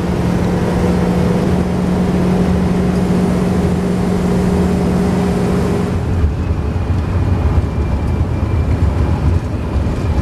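Dodge camper van's engine and road noise heard inside the cab: a steady drone with a held hum while the van labours up a long hill at its top speed. About six seconds in the hum stops abruptly, leaving a lower, rougher road rumble.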